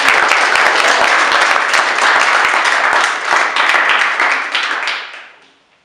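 Loud applause from many people clapping, fading away about five seconds in.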